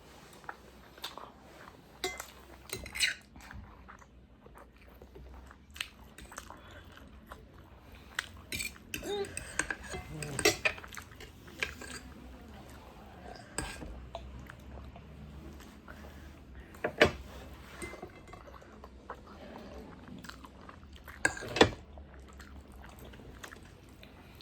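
Close-up eating sounds: chewing and biting, with scattered light clicks of utensils against dishes.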